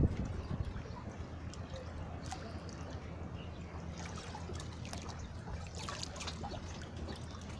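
Sea water lapping and splashing, with a steady low hum underneath; a run of sharper splashes comes about four to six and a half seconds in.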